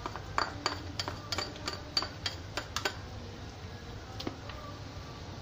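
A cooking spatula clinking against a ceramic plate and a non-stick wok as spring onions go into simmering soup: about a dozen quick, ringing clicks over the first three seconds, then one duller knock about a second later.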